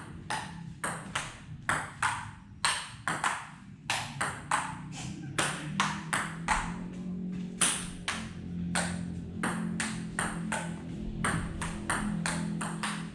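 Table tennis rally: a celluloid ping-pong ball clicking back and forth off the bats and the tabletop at a brisk, even pace of about two to three hits a second. A low steady hum sits underneath and grows stronger about five seconds in.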